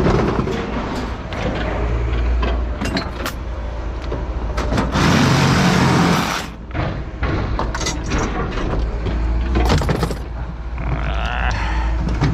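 Scrap metal being thrown onto a scrapyard pile: repeated clanks and crashes, with one longer crash about five seconds in, over a steady low engine rumble.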